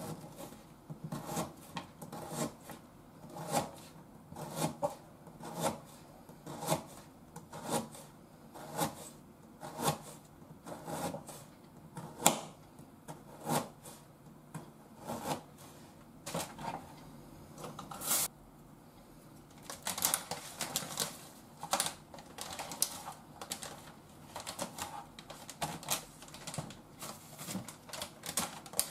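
Kitchen knife chopping vegetables on a plastic cutting board: sharp knocks about once a second, then a quicker, denser run of cuts in the last third.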